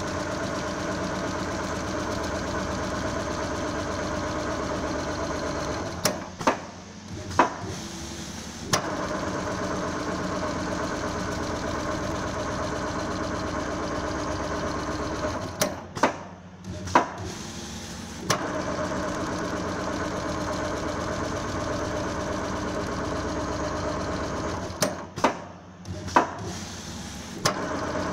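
Richpeace automatic sewing machine running steadily as it stitches quilting lines through leather and wadding. It stops three times for two or three seconds, with a few sharp clicks in each stop, then runs on.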